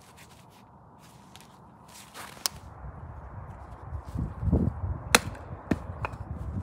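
A wooden baton knocking on the spine of a knife blade to split a piece of wood (batoning): a few sharp knocks, one about two and a half seconds in and three close together near the end. A low rumble swells in between.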